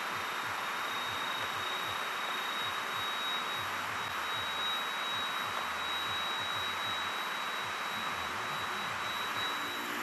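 A steady, high-pitched insect whine on one unchanging note, held for nearly ten seconds and stopping just before the end, over an even background hiss.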